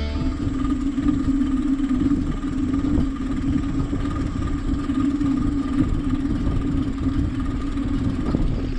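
Steady riding noise picked up by a bicycle-mounted camera: wind buffeting the microphone and tyres running on an asphalt lane, with a low rumble and a constant hum.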